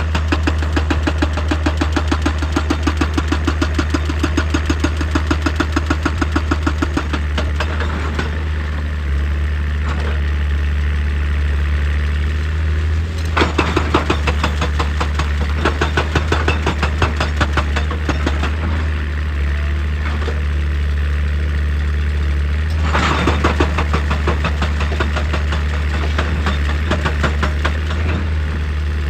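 A heavy excavator's diesel engine running steadily. Three times it is joined by spells of rapid, even knocking at about four strokes a second as the machine works rock.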